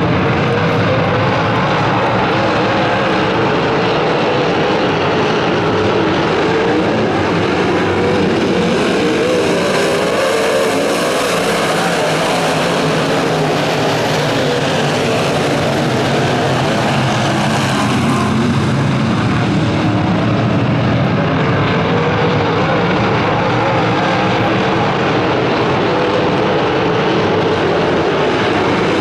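A field of IMCA Modified dirt-track race cars with V8 engines running at racing speed around the oval. Several engines sound at once, their pitch rising and falling as the cars lap, and the sound grows brighter through the middle stretch.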